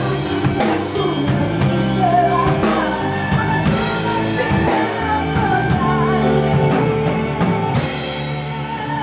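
Rock-style band music with a drum kit, with cymbal crashes about four seconds in and again near the end.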